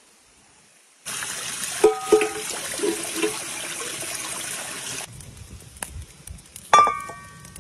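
Stream water pouring and gurgling into a plastic jug held under a small cascade for about four seconds, cutting off abruptly. Then a few faint crackles from a wood fire and, near the end, a sharp metal clank that rings briefly, from the metal kettle on the stone stove.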